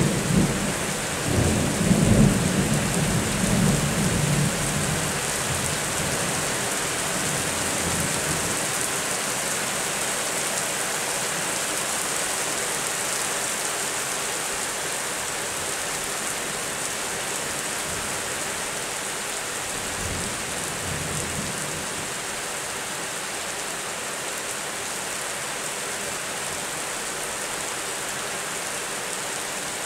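Thunder rumbling over steady rain: a low rumble in the first few seconds that fades away, and a fainter rumble about twenty seconds in, with the rain hissing evenly throughout.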